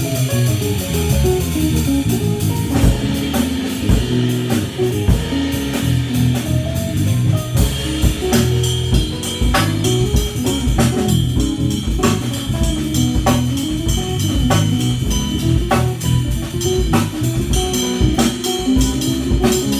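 Keyboard, bass and drum kit playing an instrumental piece together; the drums become busier and more prominent about three seconds in.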